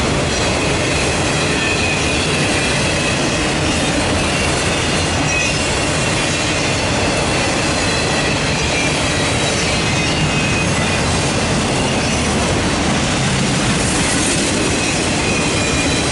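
Empty autorack cars of a freight train rolling past close by: a steady, loud rumble and clatter of steel wheels on the rails, with faint high thin tones over it.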